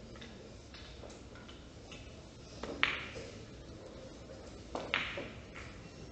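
Billiard balls clicking together twice, about two seconds apart, each a quick double click with a short ring.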